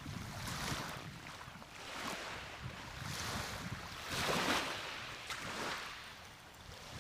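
Small waves breaking and washing up the beach, surging and fading every second or two, the loudest about four and a half seconds in, over a low rumble of wind on the microphone.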